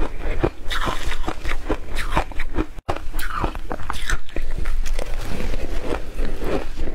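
Close-up crunching of shaved ice being bitten and chewed, a dense run of crisp crunches. It cuts out for an instant a little under three seconds in.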